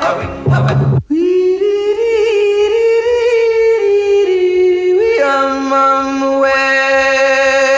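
Doo-wop vocal group: a rhythmic close-harmony chant with a low bass part breaks off about a second in. A high male falsetto lead then sings a wordless, gliding melody, and a second, lower sustained voice joins it about five seconds in.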